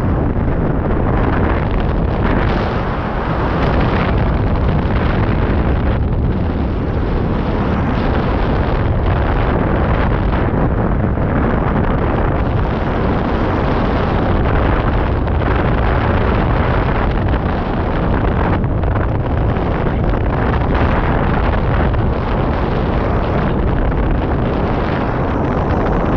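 Loud, steady wind buffeting on the microphone of a GoPro mounted on a hang glider in flight, a deep rushing rumble that flutters slightly without a break.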